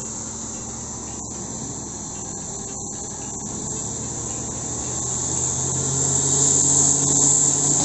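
A vehicle engine pulling hard at full throttle, holding a steady pitch and growing louder over the second half. A steady high insect buzz runs underneath.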